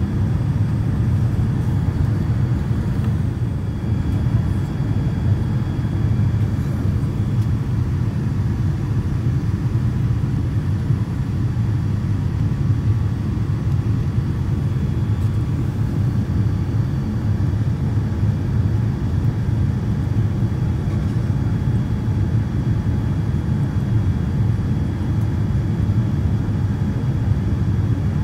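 Cabin noise inside a Boeing 787-9 Dreamliner on approach to landing: a steady low rumble of engines and airflow heard from a window seat, with no sudden sounds.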